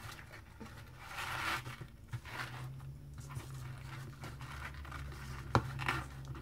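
Hands handling a cardstock gift cracker and organza ribbon: soft rustling and crinkling of paper and ribbon, with a sharp tap about five and a half seconds in. A steady low hum runs underneath from about two seconds in.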